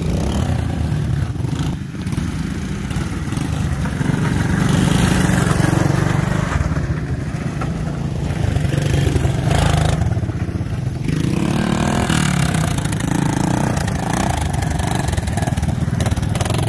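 Four-stroke single-cylinder engines of Honda Big Red three-wheelers and a four-wheeler running and revving as they ride. The engine note rises and falls with the throttle, with louder surges a few seconds in and again around the middle.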